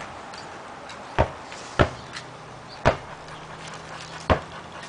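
A basketball bouncing on an asphalt driveway: four sharp bounces at uneven gaps of about a second.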